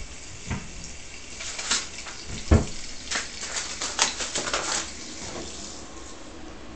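A saucepan knocked and slid about on an electric hotplate: a few sharp knocks, the loudest about two and a half seconds in, then a run of light metallic clatter that dies away after about five seconds.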